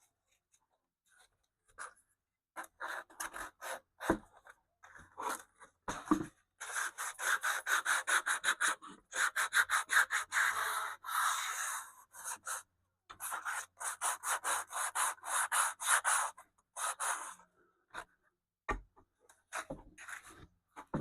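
Sandpaper rubbed by hand over the stripped wood of a Philco Model 70 radio cabinet, in quick back-and-forth strokes several a second, smoothing the bare wood for staining. It starts as scattered strokes, settles into a steady run with a short pause partway, and thins out near the end.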